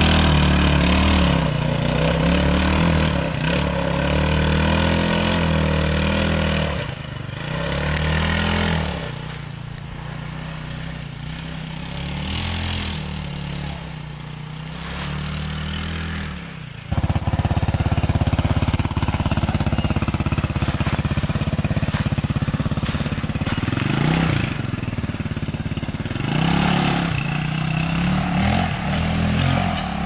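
Off-road go-kart's small engine running and revving up and down as it drives a dirt trail, its pitch rising and falling. It grows fainter as the kart moves off, then comes back suddenly louder about 17 seconds in.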